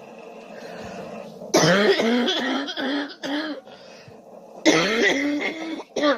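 A girl coughing in two rapid fits of several voiced coughs each, the first starting about one and a half seconds in and the second near five seconds in, with one more short cough at the very end.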